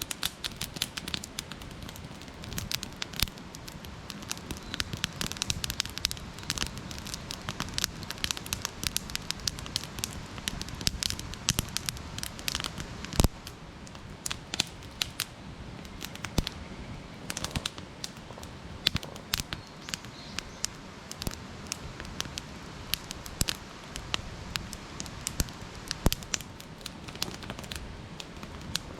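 Wood campfire crackling, with a steady stream of small pops and snaps and two sharper, louder snaps, one about midway and one near the end.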